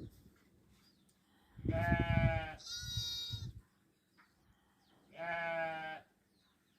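Goats bleating: three calls, about two, three and five seconds in, the middle one higher-pitched.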